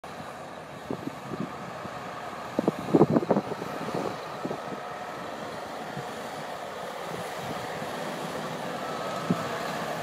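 JCB Fastrac 8250 tractor's six-cylinder diesel engine running steadily as it pulls a six-furrow mounted plough, growing louder as it comes closer. A cluster of sharp knocks about three seconds in, with single knocks about a second in and near the end.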